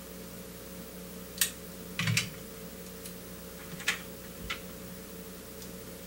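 A few light, sharp clicks and taps spread out over a few seconds, one of them a quick double, over a steady low electrical hum.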